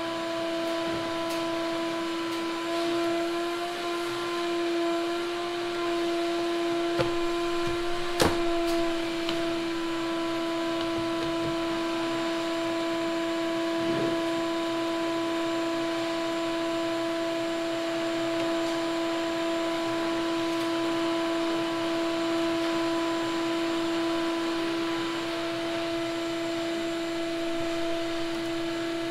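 A machine runs with a steady, even-pitched hum, with a few clicks and knocks from hand work on the engine, the sharpest about eight seconds in.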